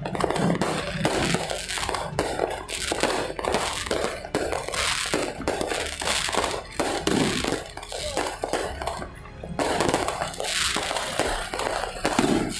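Many fireworks and firecrackers going off at once: a dense, continuous run of cracks, bangs and crackling bursts.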